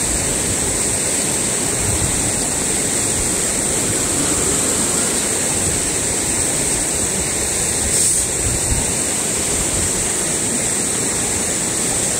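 Fast-flowing rocky river with a strong current, rushing loudly and steadily. A brief bump is heard about eight seconds in.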